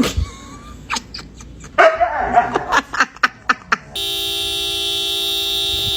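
A dog barking and growling among sharp clicks and knocks. About four seconds in, a steady horn-like tone starts suddenly and holds.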